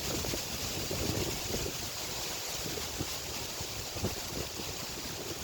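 Steady rushing wind noise on the microphone, with a few faint light ticks of small things being handled.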